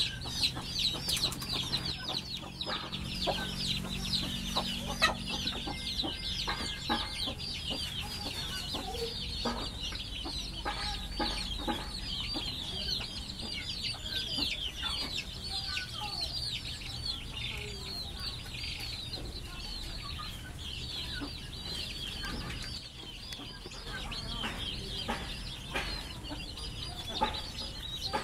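Chickens in a yard: young chicks peeping in a constant high chatter of short falling calls, with short clucks scattered among them.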